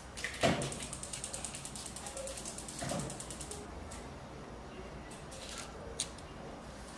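A knock, then a gas range's spark igniter clicking rapidly, about ten clicks a second for some three seconds, as a burner is being relit.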